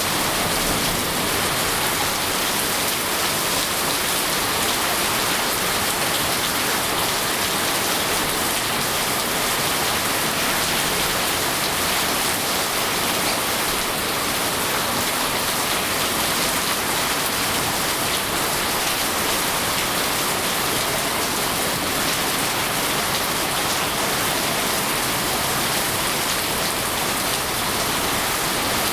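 Steady rain falling, an even unbroken hiss with no distinct drops or thunder standing out.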